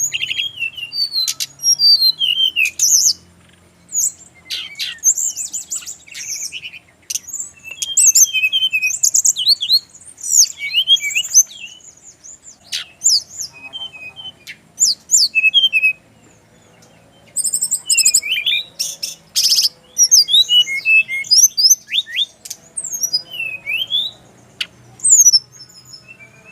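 Brown-chested jungle flycatcher singing: bursts of quick, high-pitched chirps and sweeping whistles, each run lasting a few seconds, separated by short pauses.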